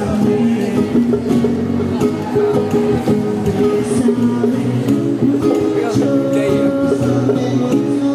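Band music with plucked string chords over a steady percussive beat.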